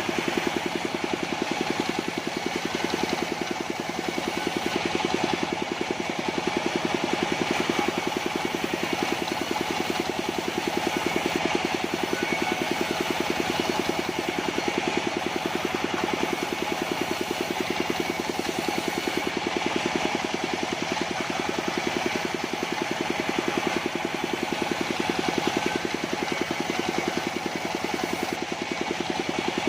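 Engine of a portable sawmill running steadily at a constant speed.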